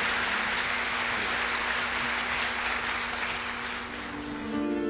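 Audience applauding, easing off near the end as the band's first held notes come in.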